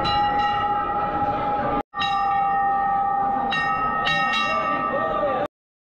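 Hindu temple bells being rung again and again, their struck tones ringing on and overlapping over a crowd's murmur. The sound breaks off briefly about two seconds in and stops abruptly near the end.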